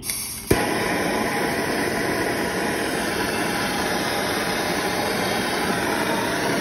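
A handheld gas torch lights with a sharp pop about half a second in, then burns with a steady hiss. It is heating a tapered roller bearing's inner race to expand it for pressing onto a Dana 30 differential carrier.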